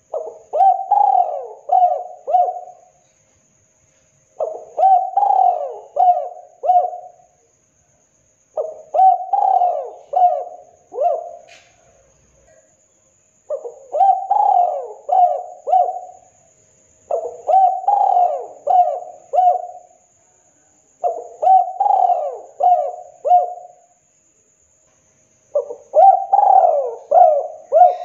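Spotted dove cooing its song: seven phrases, each of four or five rising-and-falling coos lasting a couple of seconds, repeated about every four seconds.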